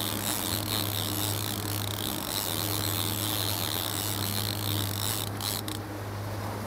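Boat engine running steadily with water rushing in the wake, under the mechanical whir of a fishing reel working line against a hooked wahoo.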